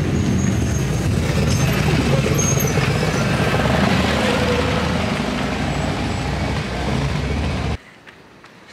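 Road vehicle engines running close by in a narrow street, a steady low rumble that cuts off abruptly near the end.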